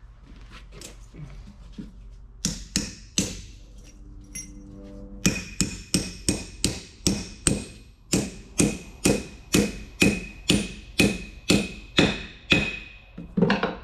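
Hammer blows on the end of a transmission countershaft standing on a wooden block, driving a bearing onto the shaft. Two single strikes come first, then a long steady run of about three ringing metallic blows a second, with a brief pause partway through.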